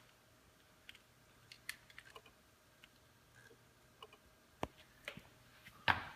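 Scattered light clicks and knocks of small objects being handled and set down, with two sharper knocks late on.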